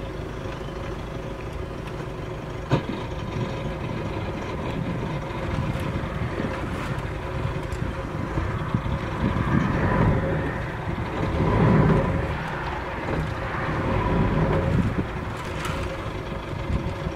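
Sailboat's engine running steadily while the boat motors along, with a louder, rougher rush of noise through the second half.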